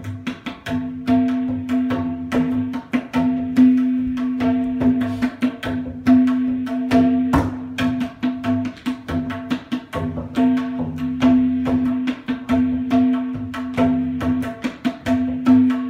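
Tabla being played fast, with dense, rapid strokes on the right-hand drum (dayan) and deeper strokes on the bass drum (bayan). The drumming runs over a steady held accompanying note.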